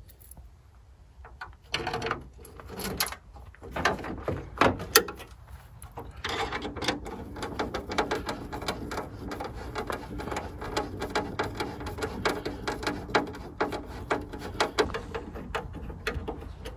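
Screws being driven to fasten a cook table onto a Jeep tailgate. A few separate knocks come first, then from about six seconds in a long run of rapid, even clicking with a faint steady hum as the fastening tool turns the screw.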